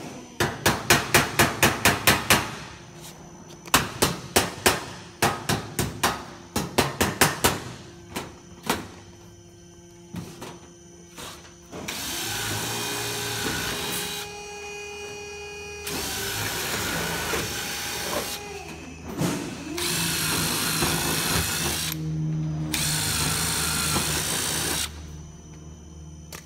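Tin snips cutting the steel ridge flashing: quick sharp snips, about five a second, in several runs over the first nine seconds. Then a cordless drill drives roofing screws through the flat ridge capping, four runs of about two seconds each.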